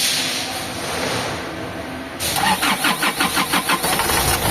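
Isuzu 4JB1 diesel engine cranking on the starter, about five pulses a second for a second and a half, then catching and settling into a steady run: a quick start with its injectors repaired and crankshaft sensor replaced, no longer hard-starting. A steady hiss fills the first half before the cranking.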